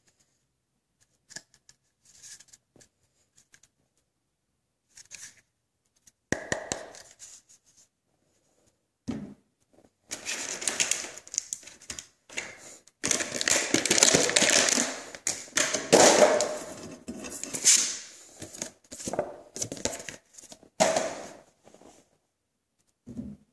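Hands handling a rubber-cased external battery pack and its plastic packaging: scattered clicks and taps, then from about ten seconds in a long stretch of dense rustling and knocking.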